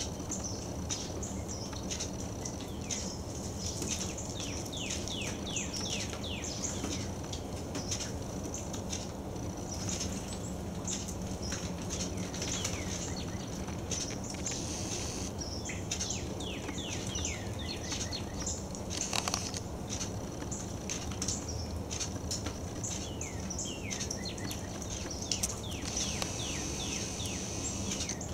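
Small songbirds chirping in runs of quick, high, downward-slurred notes that come and go throughout, over a steady low background noise.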